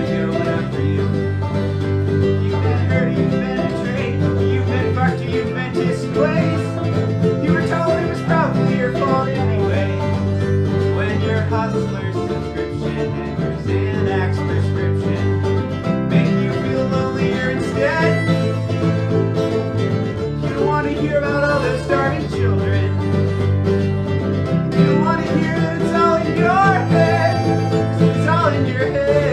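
An acoustic bluegrass string band plays an instrumental passage: banjo and acoustic guitars over a steady bass line, with a lead melody bending in pitch above them.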